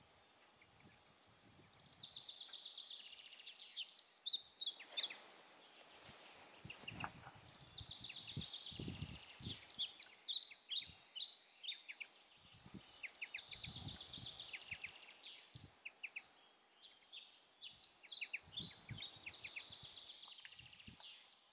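A small bird singing the same phrase about four times, roughly every five seconds: a high buzzy trill followed by a run of sharp chirps. Faint low bumps come and go underneath.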